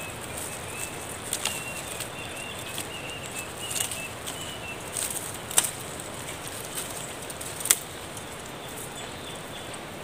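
Thin tree branches handled by hand, snapping and rustling, with two sharp loud cracks in the second half. Underneath runs a steady high hiss, and a faint, thin, wavering chirping comes through in the first half.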